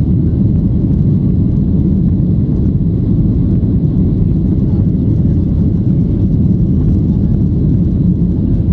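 Steady low cabin noise of a Boeing 737-800 climbing after takeoff, heard from inside the cabin at a seat over the wing: the CFM56-7B turbofan engines and the airflow around the airframe.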